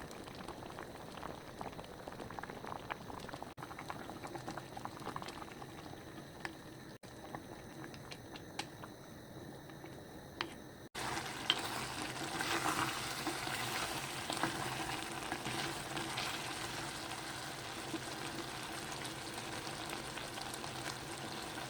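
Potato and Spam jjageuli stew bubbling in a pot: a steady boiling hiss dotted with small pops. It breaks off briefly a few times and is louder from about eleven seconds in.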